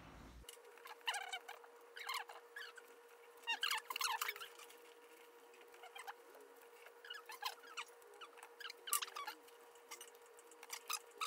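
Kitchen scissors snipping through a leek: short crisp, slightly squeaky cuts, about one a second at an uneven pace, over a faint steady hum.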